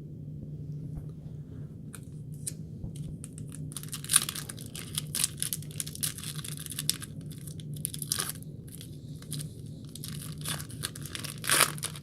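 Wrapper of a trading-card pack crinkling and tearing open, with faint handling clicks at first and spurts of crackle from about four seconds in.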